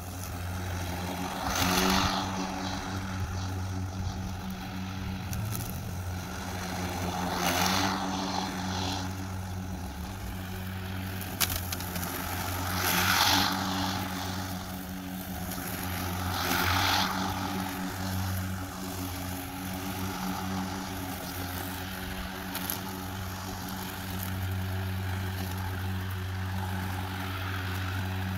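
EGO Power+ Select Cut 56-volt brushless cordless electric lawn mower running while cutting tall grass: a steady low motor-and-blade hum, with a louder rushing swell four times, about two, seven and a half, thirteen and seventeen seconds in.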